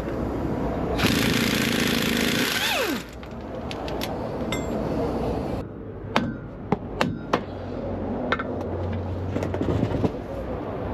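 A loud hiss lasting about two seconds, with a falling whine inside it, then a run of sharp metallic knocks and clinks of hand tools on metal.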